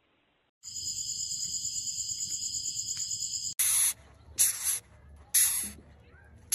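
An animal's steady, high, buzzing rattle for about three seconds, then three short hisses about a second apart.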